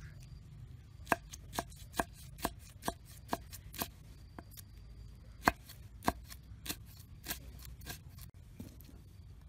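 Knife slicing rolled green leaves into thin strips on a round wooden chopping block: sharp taps of the blade on the wood, about two a second, starting about a second in.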